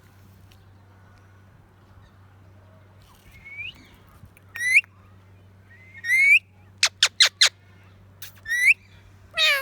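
Indian ringneck parakeet calling: after about three quiet seconds, a string of short, loud chirps that sweep upward in pitch, roughly one to two seconds apart. Near the middle comes a quick run of four sharp, clipped notes.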